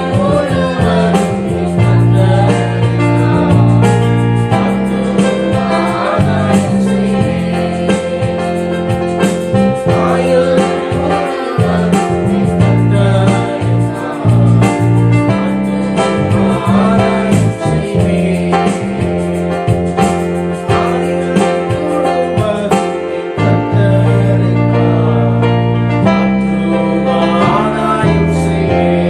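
Christian worship music: voices singing a melody over sustained keyboard chords with a steady bass.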